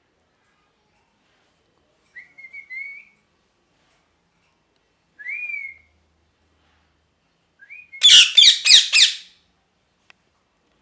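Ringneck parrot giving two short whistled calls a few seconds apart, then about eight seconds in a quick burst of loud, harsh screeches.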